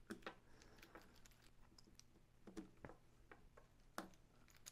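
Faint, scattered light clicks and ticks of small screws and a Phillips screwdriver on a plastic gearbox housing as the screws are set in, with one sharper click about four seconds in.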